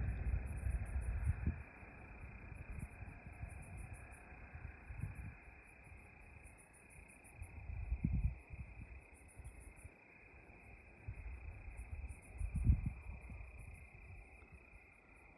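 Crickets chirping in short, high, pulsed trills that repeat about every second and a half. There are bursts of low rumble near the start, about eight seconds in and about twelve and a half seconds in.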